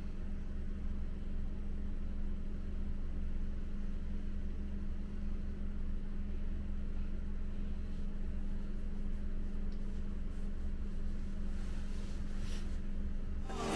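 Steady low room hum with a constant faint tone, the background drone of a hotel room.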